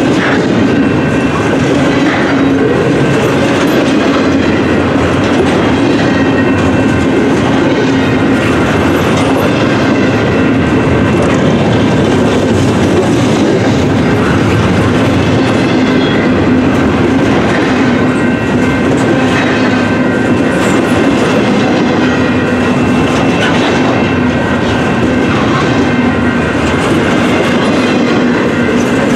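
Canadian Pacific double-stack intermodal train's container well cars rolling past close by: a loud, steady rumble of steel wheels on rail with irregular clatter and faint high squealing tones.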